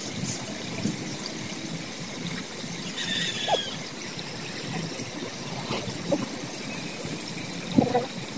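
Water trickling under a steady hiss, with a few faint clicks and knocks.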